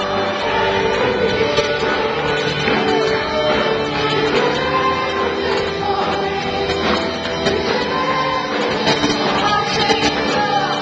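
Live worship music: women singing into microphones over sustained instrumental backing, continuous and at full volume.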